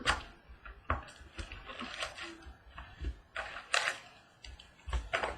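A trading-card box and its packs being opened and handled: a run of irregular crinkles, rips and small clicks.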